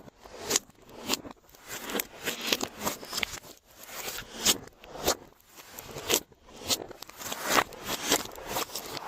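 Glossy slime being squished and folded by hand, giving a run of crackling clicks and pops in uneven pulses about twice a second.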